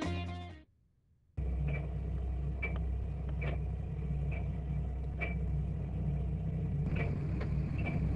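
Background music fading out, a brief silence, then the steady low rumble of the 1974 Gulfstar 44 motor sailor's inboard engine running under way, with short high chirps repeating about once a second.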